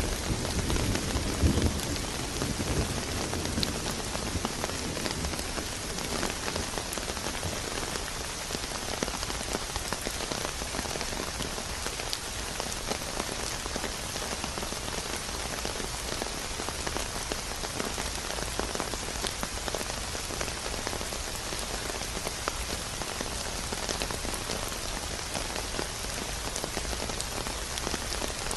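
Steady rain falling on a surface, with the tail of a low thunder rumble dying away in the first couple of seconds.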